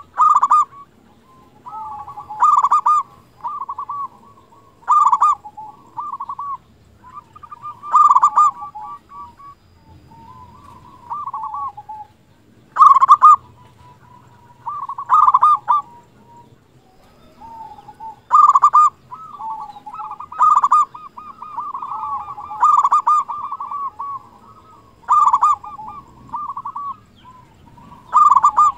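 Zebra dove (perkutut) in full song, cooing over and over. Short phrases come every two seconds or so, each opening with a loud note and running into a rapid rolling trill.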